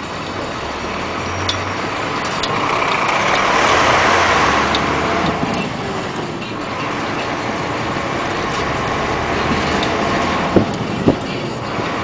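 Heavy truck going by, its engine and tyre noise swelling to a peak about four seconds in and easing off. Two sharp knocks about half a second apart near the end.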